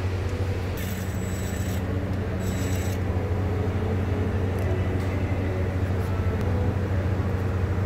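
Two short runs of a DeWalt 20V cordless impact driver, about one and two and a half seconds in, taking out the brake pad wear sensor's E10 fastener. A steady low hum lies under them throughout.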